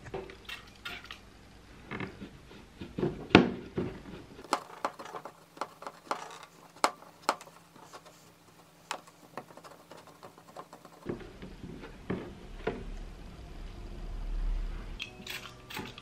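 Clear plastic fridge organizer bin being handled and wiped on a wooden table: scattered taps, knocks and rubbing of the hard plastic, the loudest knock a few seconds in. Near the end comes a steadier rush of water being poured into the bin.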